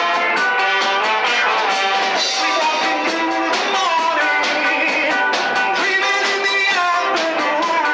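Reggae band playing live, an instrumental passage with melody lines over a regular beat.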